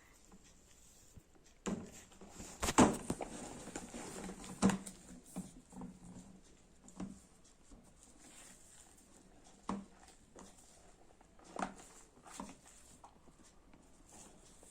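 Shaving-foam slime, just firmed up with borax, being worked in its container, giving off irregular wet squelches and sticky crackling clicks. The loudest cluster comes a little under 3 s in, with a few single squelches later.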